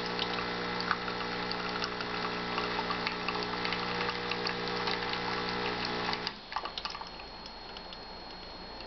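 Solis Palazzo super-automatic espresso machine's pump humming steadily as a double espresso pours, then cutting off about six seconds in as the shot ends, followed by a few faint clicks.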